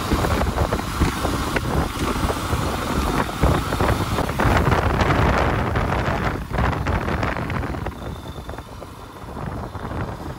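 Yamaha FZ-X motorcycle's single-cylinder engine running as it is ridden along a road, under heavy wind noise on the microphone. The rumble eases and gets quieter about eight seconds in.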